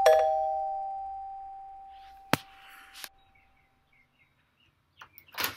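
Doorbell chime sounding its two notes, ding-dong, high then low, at the start and fading out over about two and a half seconds. It is followed by a sharp click a little after two seconds, another click about a second later, and a knock near the end.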